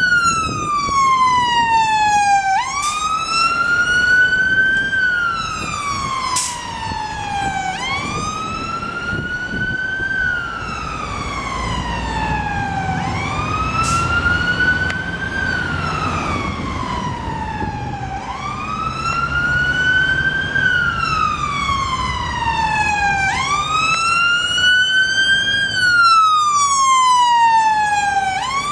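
Scania P280 fire engine's siren on its wail tone, a slow rise and fall repeating about every five seconds, with the truck's diesel engine running underneath as it drives by on an emergency call.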